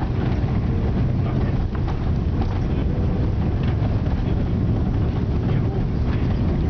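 Airliner cabin noise during the landing roll: a steady low rumble from the engines and the wheels rolling on the runway.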